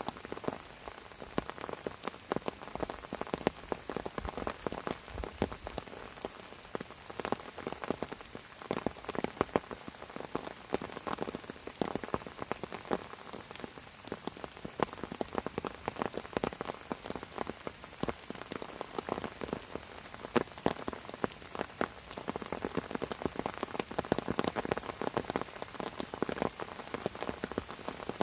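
Steady rain falling on fern fronds, a dense, irregular patter of many individual drops ticking on the leaves.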